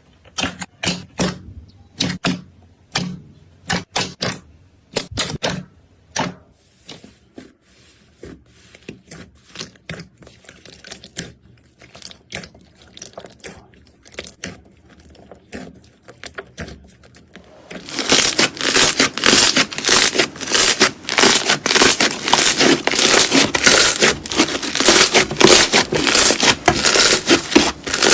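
Slime being squeezed and worked by hand: sharp pops and clicks a few times a second, then softer, denser small clicks, and about two-thirds of the way through a sudden switch to loud, dense crunching and crackling.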